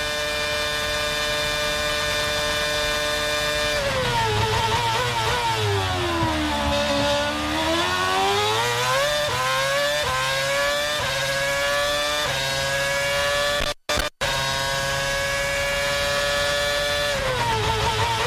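Formula 1 V8 engine on track, held at steady high revs, then dropping sharply about four seconds in as it changes down under braking. It climbs back up in quick steps through the upshifts and holds high revs again before dropping once more near the end. The sound cuts out briefly a little past the middle.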